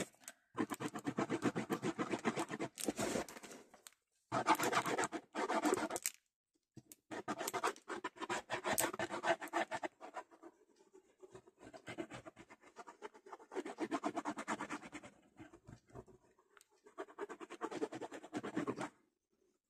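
Glue being spread over the vanity case's lid in quick back-and-forth scratching strokes, in several stretches with short pauses between them.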